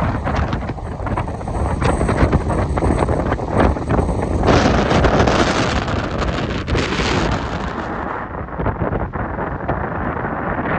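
Strong gusty wind buffeting the microphone: a loud, rumbling rush with irregular thumps, turning brighter and hissier for a few seconds around the middle.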